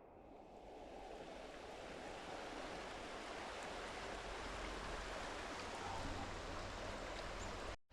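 Waterfall rushing: a steady wash of falling water that fades in over the first couple of seconds and cuts off abruptly at the end.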